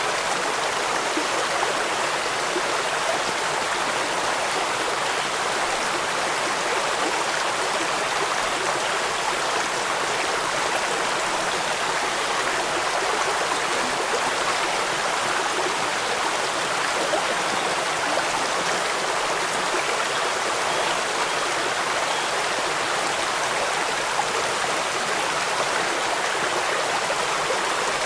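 Steady rushing of running water, an even hiss without distinct drops or changes.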